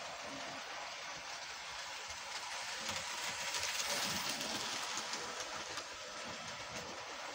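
Model railway train running on the track: a steady rolling rumble with light clicks that grows louder a few seconds in as the train passes close, then eases.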